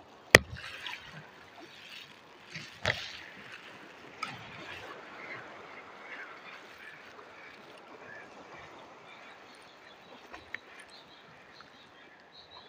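Sea water washing and lapping over shore rocks. A sharp click from the fishing gear, typical of a spinning reel's bail snapping shut after a cast, comes a moment in, with a weaker click about three seconds in.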